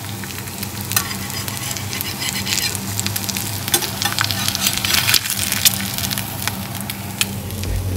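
Eggs frying in hot oil in a pan, a steady sizzle full of small crackles, over a low steady hum.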